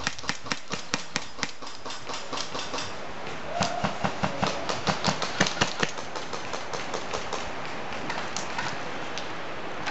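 Airsoft guns firing: rapid sharp clicking shots, several a second, in two spells, over the first second or so and again from about three and a half to six seconds in.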